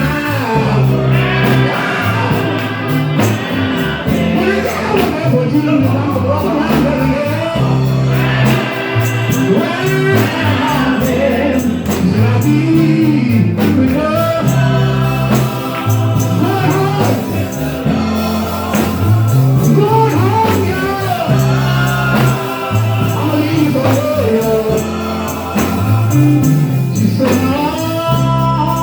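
Live gospel music: voices singing over a band, with a steady, repeating bass line and percussion.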